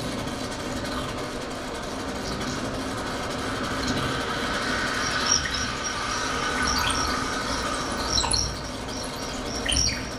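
Experimental live music for dance: a dense, noisy drone with a low steady hum, joined after a few seconds by scattered high squeaks and chirps.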